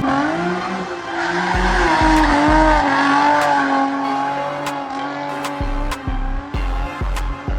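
Background music with a beat of deep bass hits about twice a second and ticking hi-hats, mixed with long wavering high-pitched tones that fit a car's tyres squealing.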